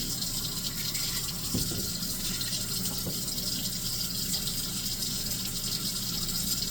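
Kitchen tap running steadily into the sink, with a couple of faint knocks.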